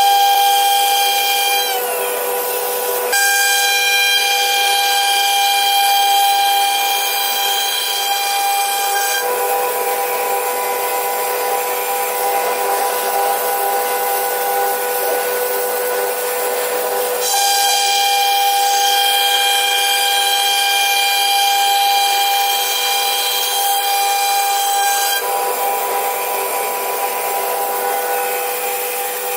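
CNC router spindle running with a high steady whine over the hiss of the bit cutting wood. The whine dips in pitch briefly about two seconds in, and its tone shifts several times as the cutting passes change.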